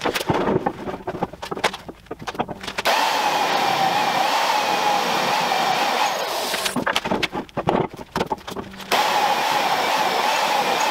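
Magnetic drill's electric motor running with a steady whine while drilling a hole in steel plate, starting about three seconds in. A run of clicks and knocks comes first, and again briefly between seven and nine seconds before the motor runs on.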